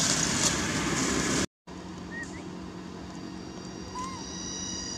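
Dry leaves rustling and crackling as a long-tailed macaque rummages through leaf litter. The sound cuts off about a second and a half in, and a quieter steady hum follows, with faint steady high tones and a few short squeaky chirps, one of them about four seconds in.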